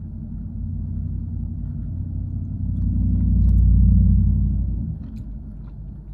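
Low rumble of a car on the road, swelling to its loudest about three to four seconds in and easing off by about five seconds.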